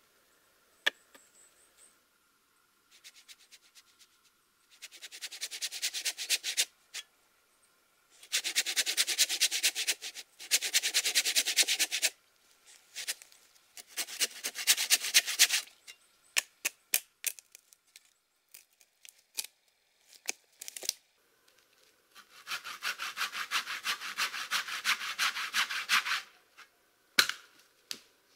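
Hand saw cutting through a pine log in five runs of fast back-and-forth strokes, each lasting a couple of seconds, with pauses between. Short sharp cracks and knocks of wood come between the runs.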